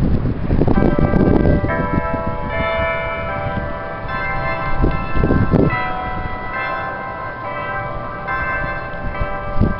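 Church bells ringing, many strikes overlapping so that their tones hang together. Wind buffets the microphone at the start and again about halfway through.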